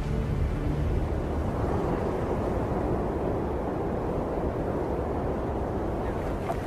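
A steady low rumble of wind.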